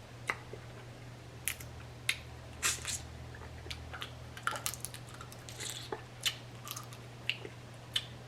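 Close-up chewing of seafood: wet squishing with irregular short smacks and clicks from the mouth. A low steady hum runs underneath.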